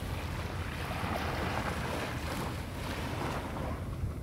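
Small waves lapping and washing up on a beach, with wind rumbling on the microphone.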